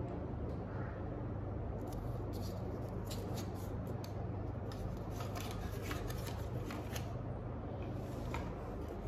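Otterbox Exo Edge retail box being opened by hand: a fast run of sharp clicks and crackles from packaging, starting about two seconds in and easing off about seven seconds in, with a few more near the end, over a steady low hum.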